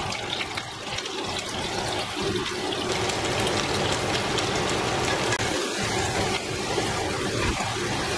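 Blanched oxtail pieces sizzling steadily as they sear in a hot nonstick frying pan, a dense crackling hiss.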